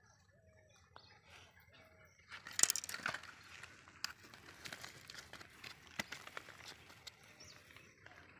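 Rustling and small clicks from hands handling a freshly caught tilapia and fishing line, loudest about two and a half to three and a half seconds in. A short bird call repeats about once a second before that.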